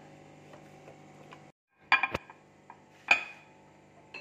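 Two sharp clinks about a second apart: a glass bowl knocking against a plate as a set fruit dessert is turned out of it upside down.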